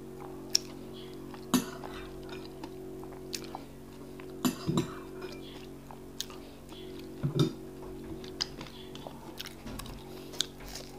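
Close-miked eating sounds: custard taken off a spoon and akara bean fritters chewed, heard as scattered wet mouth clicks and smacks, with a few louder ones about 4.5 and 7.5 seconds in. A steady low hum runs underneath.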